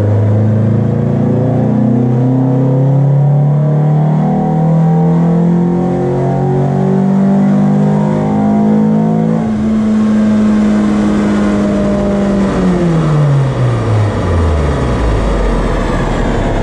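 Kia Elan's 1.8-litre four-cylinder engine pulling on a chassis dynamometer, heard from inside the cabin: its revs climb steadily under load, level off about nine seconds in, then fall away over a couple of seconds as the run ends, leaving a low rumble.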